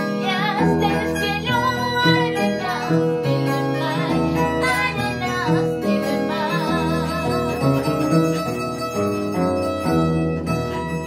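Music: a song's accompaniment of plucked strings over a bass line that changes note every couple of seconds, with a melody line that wavers in pitch above it.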